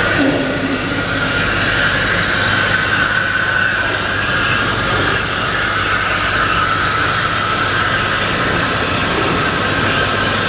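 EZ50S wire-cutting machine running: a steady, loud mechanical whirring with a squealing tone held throughout that wavers slightly in pitch.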